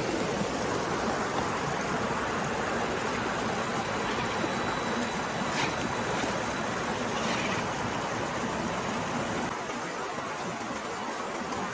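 Flowing water rushing steadily, with a couple of faint ticks about halfway through; it gets a little quieter near the end.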